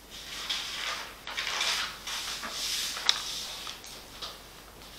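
Soft rustling and handling noises, a few short swells of rustle with a light click about three seconds in.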